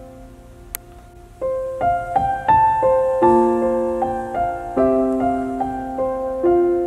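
Slow, gentle piano music: a held chord dies away, then single notes and chords are struck again from about a second and a half in.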